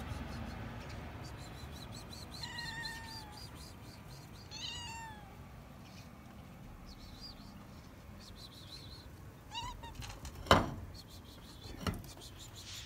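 Stray tabby-and-white cat meowing for food: several short meows a few seconds apart, each rising and falling in pitch. Near the end come two sharp knocks, the first the loudest sound.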